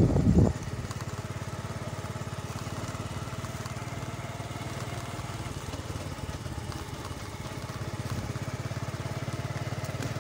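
Motorcycle engine running steadily under way, a fast even putter that grows slightly louder about eight seconds in.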